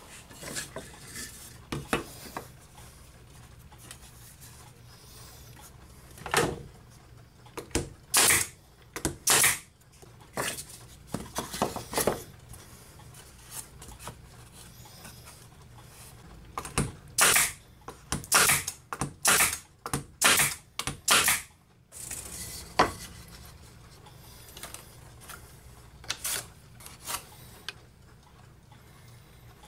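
Wooden boards knocking and clattering on a metal-topped workbench as pieces are handled and set down, in irregular clusters of sharp knocks.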